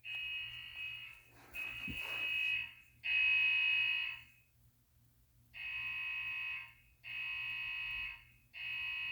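Fire alarm speaker strobe on a voice evacuation panel sounding an electronic alarm tone. It comes in long beeps of about a second each: three in a row, a pause, then three more.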